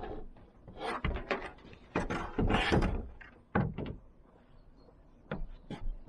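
Irregular thuds and knocks on a van roof as a rigid solar panel is tipped up and moved and a person shifts about on the roof, with lighter clicks near the end.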